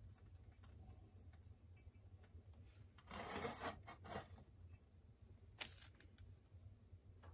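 Faint handling sounds while a mantle is tied onto a propane lantern's burner: a soft rustle of fingers working the mantle and lantern about three seconds in, then a brief, sharper rustle as a hand reaches to the paper mantle packets.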